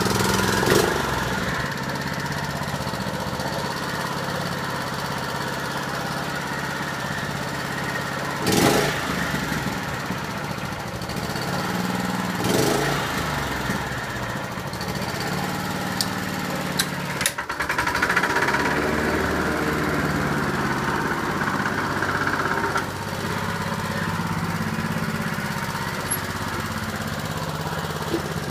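Honda HR194 push mower's small four-stroke engine running steadily, just after a cold start. A few short knocks break through the running sound.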